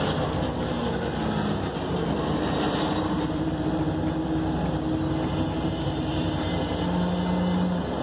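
Diesel freight locomotive engine running steadily: a droning hum with a low and a slightly higher tone held for several seconds over a rough rumble.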